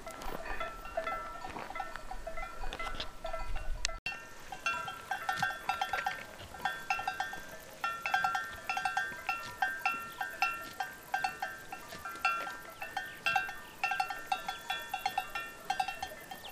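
Many bells worn by a grazing herd of livestock, clanking and ringing irregularly at several different pitches. After a sudden cut about four seconds in, the bells come thicker and closer together, while before it a low rumble lies under them.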